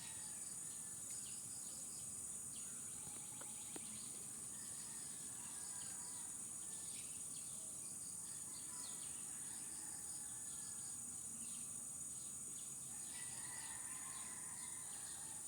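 Rural background: a steady high insect drone with scattered bird chirps. A couple of faint clicks come a few seconds in.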